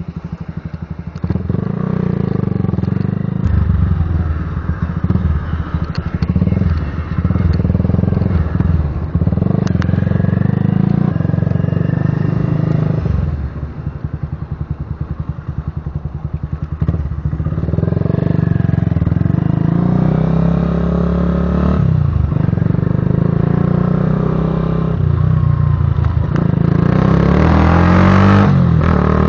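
Zanella Patagonian Eagle cruiser motorcycle under way, its exhaust giving a deep rumble. The engine speed rises and falls with the throttle and climbs hardest near the end.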